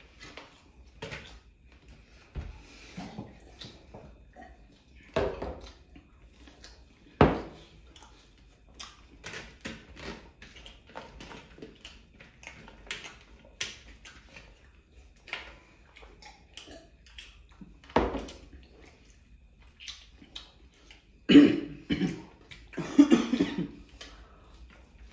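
Two people eating by hand: chewing and mouth noises, with scattered clicks and knocks of fingers and food against steel platters. A few sharper knocks stand out, and there are louder throaty sounds near the end.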